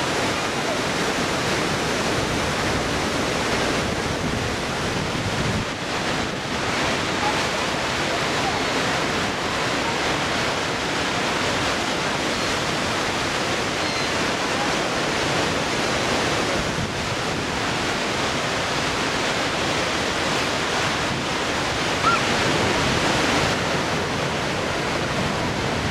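Niagara Falls: a loud, steady rush of water plunging and churning in the river below the falls.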